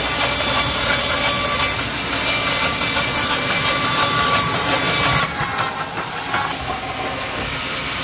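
A band sawmill blade sawing lengthwise through a log: a loud, steady, hissing cutting noise over the machine's running. About five seconds in it drops abruptly to a quieter running sound.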